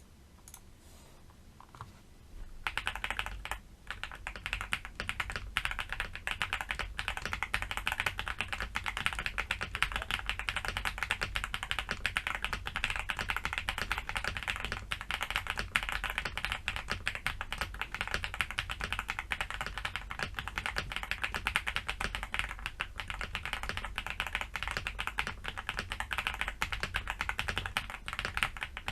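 Fast, continuous typing on an Akko SPR 75 spring-mounted mechanical keyboard with Akko V3 Cream Yellow Pro linear switches and ABS double-shot Cherry-profile keycaps. The board is foam-filled and tape-modded. A few faint taps come first, then steady rapid keystrokes set in about two and a half seconds in.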